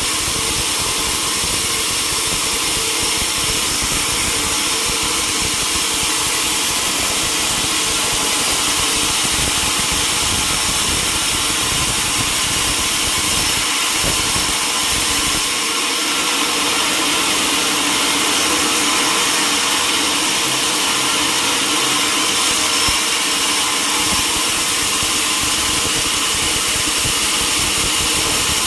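Sawmill machinery running steadily, a loud continuous mechanical noise with faint steady whining tones, as a large mahogany log is sawn. The low rumble drops away for several seconds in the middle.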